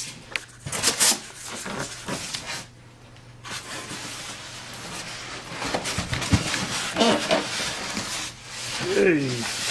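Styrofoam packaging rubbing and scraping against the foam fuselage of a model jet as it is worked out of a tight-fitting box insert, with scattered small knocks.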